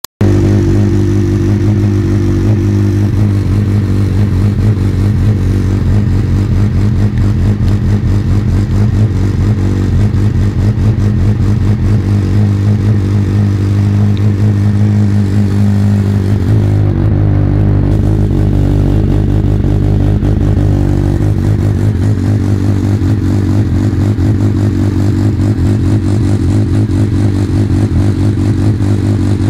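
Kawasaki ZX6R inline-four engine running through a Blue Flame stubby race-can exhaust, a loud steady note. The note changes for a few seconds around the middle, then settles back.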